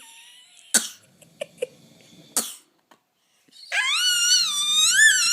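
Two short coughs about a second and a half apart, then a baby's long, high-pitched squeal that starts low, climbs and wavers up and down, beginning about two thirds of the way in.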